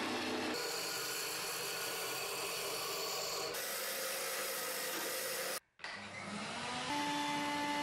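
Wood lathe spinning a chisel-handle blank while a hand-held turning tool cuts it: a steady scraping rasp of the tool on the wood, broken by a few abrupt cuts. Near the end, after a brief dropout, a shop vacuum motor spins up and settles into a steady whining hum.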